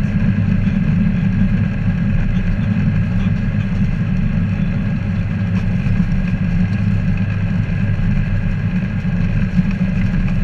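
Ikarus C42B ultralight aircraft's engine and propeller idling steadily at taxi power just after landing.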